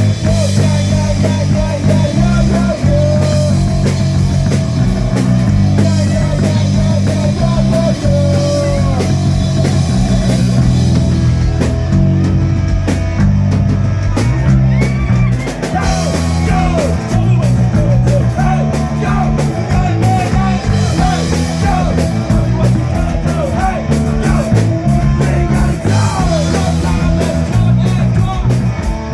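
Live rock band playing an instrumental passage: drum kit and bass guitar keep a repeating low riff while an electric guitar plays a wavering lead line with bent notes over it.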